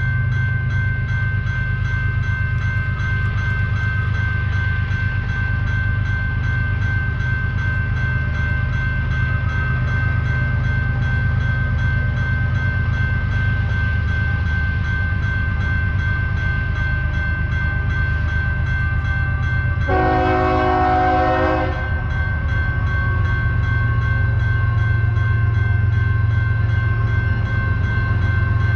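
A railroad crossing bell rings steadily over the low rumble of a slow-approaching freight train's diesel locomotives. About twenty seconds in, the locomotive horn gives one blast of about two seconds.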